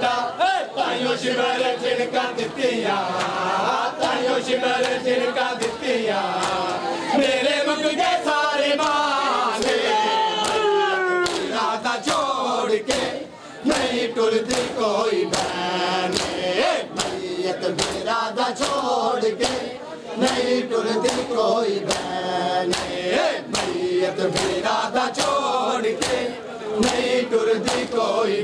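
Crowd of men chanting a Muharram lament (nauha) together, with the sharp slaps of hands beating bare chests in matam. From about halfway through, the slaps keep a steady beat under the chant.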